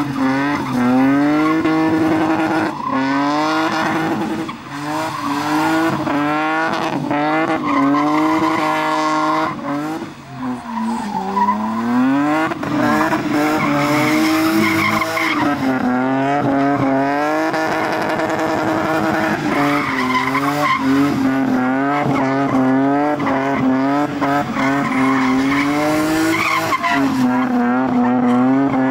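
Car engines revved hard while drifting, the revs climbing and dropping again and again with the throttle. Tyres squeal and skid underneath.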